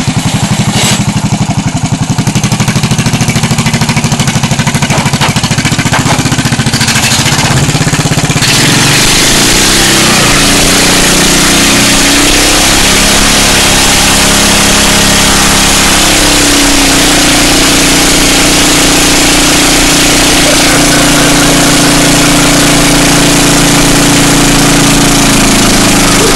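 Riding lawn mower engine running steadily, then held at high revs from about eight seconds in, its pitch rising and falling, while the rear tire spins on sheet metal in a burnout. A loud, steady hiss joins the engine when the revs go up.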